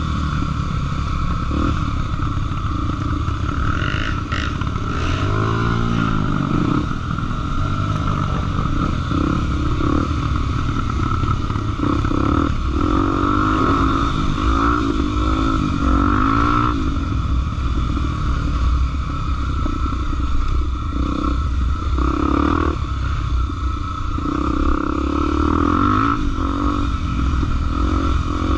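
Honda XR 250 Tornado trail motorcycle engine being ridden off-road, revving up and down over and over with the throttle, with some clatter.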